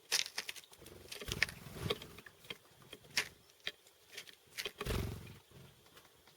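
Chickadees pecking and tapping at seeds: quick, irregular sharp taps and clicks, with a couple of low thuds, about a second and a half in and near five seconds.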